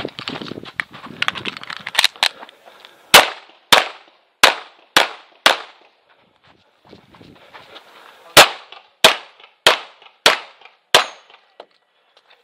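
Tanfoglio Stock 2 Xtreme 9mm pistol, loaded with 115-grain Winchester factory ammunition, fired close to the microphone in two quick strings of five shots, roughly half a second between shots, with a pause of about three seconds between the strings. A rustling noise fills the first two seconds, before the shooting starts.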